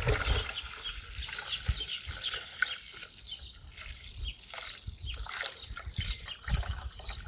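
Fermented nettle liquid manure poured from one bucket into another through a garden fork used as a rough strainer: an uneven trickle and splatter of liquid into the bucket.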